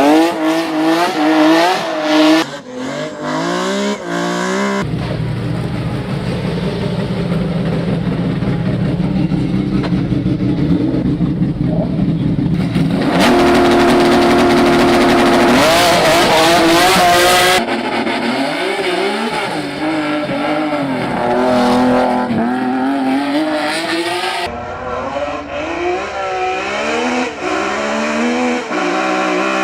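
Race car engines at full throttle on a hill climb, revving up and dropping in pitch through gear changes, in several short clips cut one after another, with a steadier, higher drone in the middle.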